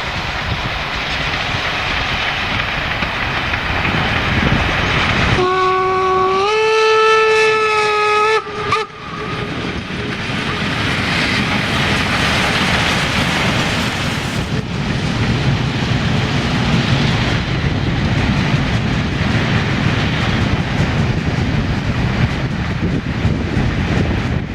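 Class 52 steam locomotive 52 1360 and its train running past with a steady noise. About five seconds in, its steam whistle sounds for about three seconds, its pitch stepping up slightly partway through, before cutting off.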